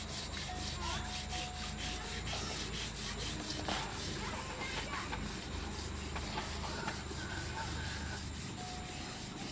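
Hand scrubbing a soot-blackened cooking pot on the ground, a quick, even run of rasping scrub strokes.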